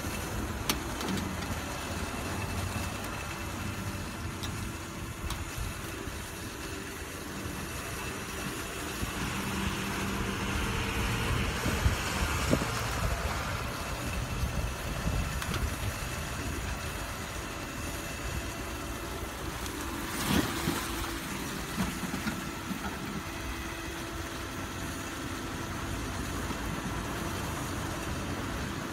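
Tow truck's engine running steadily while its winch rolls an overturned SUV in a shallow canal. There is a stretch of rushing, splashing water about ten to thirteen seconds in as the SUV goes over onto its side, then a sharp thud and splash about twenty seconds in as it drops onto its wheels.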